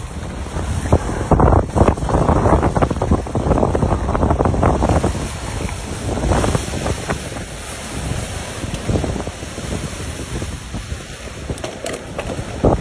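Strong gusty wind buffeting a phone's microphone in the wake of a passing tornado. It surges loudest in the first five seconds, then eases into smaller gusts.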